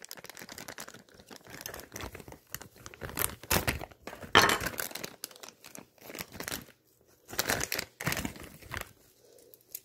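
Plastic packaging crinkling and rustling in irregular bursts as a package is torn open and unwrapped by hand.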